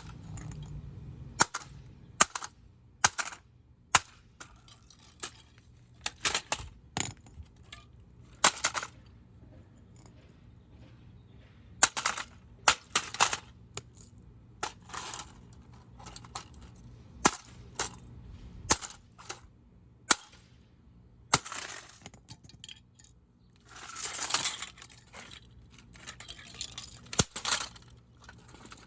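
A vintage 1987 GE alarm clock radio being smashed: a string of irregular, sharp impacts every second or two, with clinking of broken pieces and a longer rattling crunch about twenty-four seconds in.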